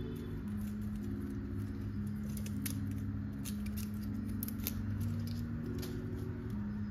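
Light clicks and rustling of a white iPad charging cable being unwrapped and handled by hand, over soft background music with a slow melody of held notes.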